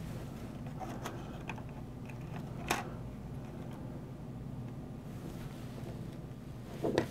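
Faint scattered clicks and taps of hands working inside an open laptop as a CPU retention bracket is fitted, the clearest click about two and a half seconds in, over a steady low hum. A brief louder sound comes just before the end.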